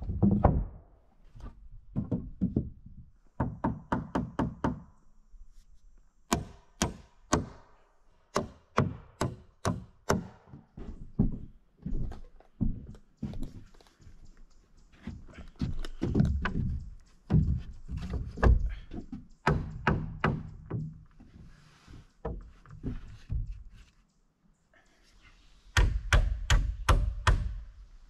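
Wall framing of green, freshly milled pine being put together: wooden knocks and thuds of boards, and runs of sharp hammer blows driving nails, about two or three a second. There is a quick run of blows near the end.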